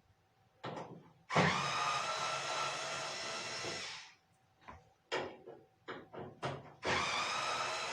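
Cordless drill-driver motor run twice, about two and a half seconds each, spinning up briefly and then holding a steady whine as it backs screws out of the dryer's panels. Light clicks and knocks of handling come between the two runs.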